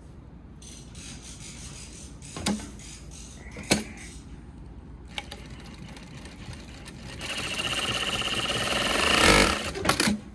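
Yamata FY9300-D4 direct-drive industrial straight-stitch sewing machine stitching spandex fabric at high speed for about three seconds near the end, stopping with a few quick clicks. Earlier, two single clicks.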